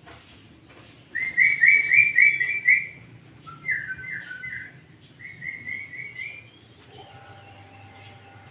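Sooty-headed bulbul singing three short phrases of quick, bright notes, the middle phrase lower than the other two.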